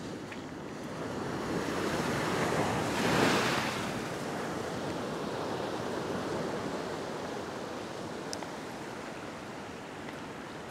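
Ocean surf breaking against a rock ledge: the rush of water swells to one loud wave crash about three seconds in, then settles into a steady wash.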